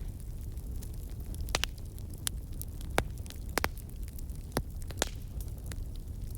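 Campfire burning: wood crackling and popping in irregular sharp snaps over a steady low rumble.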